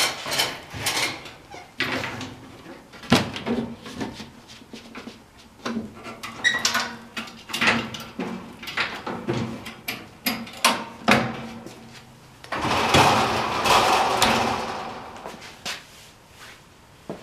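Machinery at work: a run of irregular clunks and knocks over a faint steady hum, with a loud rushing hiss of about two seconds near the end.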